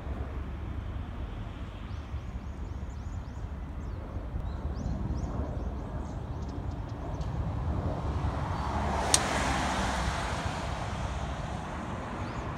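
Steady low rumble of a jet aircraft, an F-15 on its landing approach, heard far off. About eight seconds in, a road vehicle passes, swelling and fading, with one sharp click at its loudest. Birds chirp in the first half.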